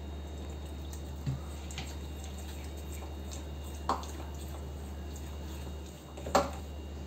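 A metal fork stirring thick, wet flour-and-water batter in a ceramic bowl, with a few sharp clinks of the fork against the bowl, the loudest near the end.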